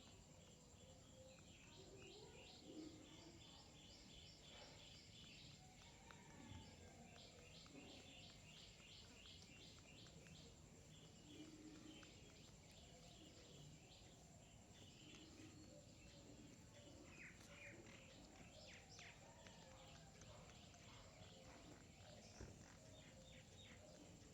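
Faint chirping of small birds in quick runs of short chirps, repeated again and again, over steady low background noise.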